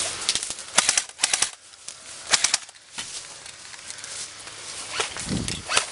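Airsoft rifles firing short bursts of quick, sharp, clicky shots, a few shots per burst, with a lone shot near the end.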